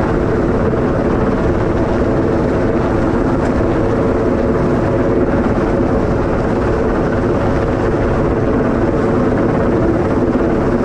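Helicopter hovering close by during an antenna lift: a loud, steady drone of rotor and engine with a layered, unchanging hum.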